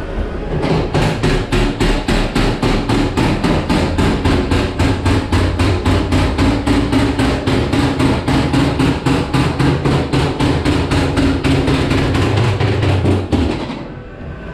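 Rapid, even mechanical clattering, about four knocks a second over a steady low hum, heard inside a ghost train dark ride. It starts about a second in and cuts off suddenly just before the end.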